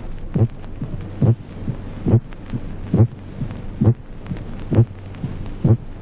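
Recorded human heart sounds beating regularly, about seven beats in six seconds, over a steady low hum. The first heart sound is weakened, a primary softening of the first sound typical of coronary infarction.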